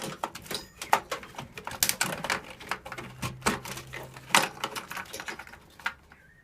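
Rapid, irregular clicking and rattling of cables and plastic connectors being unplugged and handled inside an old desktop computer case, dying away near the end.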